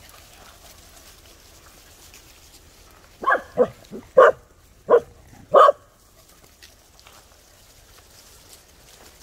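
Dog barking: a quick run of about six short barks in under three seconds, in the middle of an otherwise quiet stretch.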